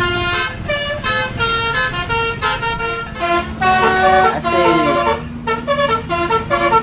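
Multi-tone 'telolet' bus horn playing a quick melody of short, steady notes; a steady low tone joins underneath about three seconds in.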